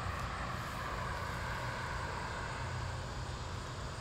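Steady hum of road traffic, an even rushing sound with a low rumble underneath.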